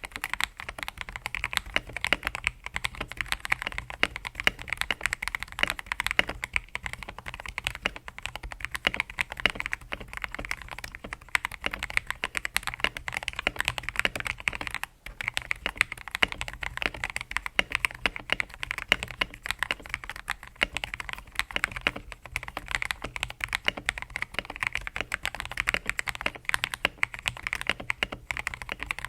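Continuous fast typing on a modded TM680 mechanical keyboard with lubed Akko CS Matcha Green linear switches and Bubble XDA PBT keycaps: a dense run of keystroke clacks, briefly pausing about halfway through.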